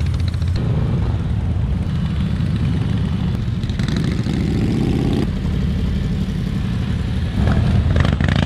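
Several motorcycle engines running as a group of bikes rolls past one by one; one engine revs up, rising in pitch about four seconds in, and cuts back sharply about a second later.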